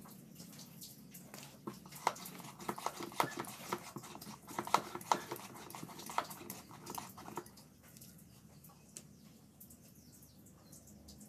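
Cattle moving about in a stall: a quick, irregular run of clicks and knocks for several seconds, then quieter.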